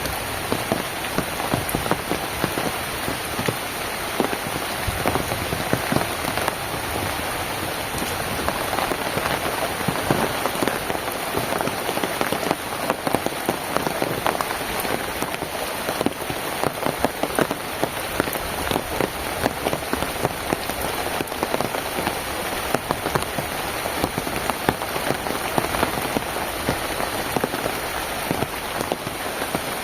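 Steady rain, with many separate drops striking a surface close by.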